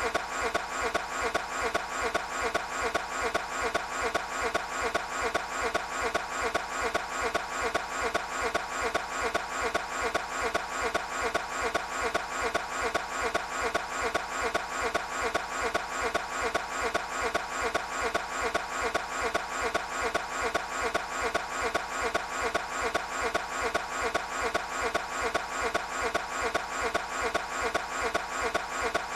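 Toyota 86's engine being cranked by the starter motor without catching: an even, repeating cranking rhythm that goes on without a break.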